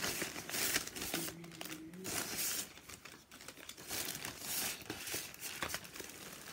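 Thin plastic shopping bag rustling and crinkling as hands rummage in it and pull out packets, with the crackle of the plastic packaging being handled.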